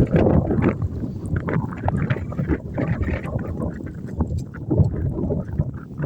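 Strong blizzard wind buffeting the microphone: a gusty, uneven low rumble that rises and falls.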